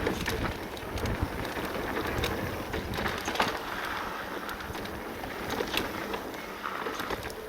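Full-suspension Cube e-mountain bike rolling fast down a dirt trail: a steady rush of tyre and wind noise on the microphone, with many short knocks and rattles from the bike over bumps.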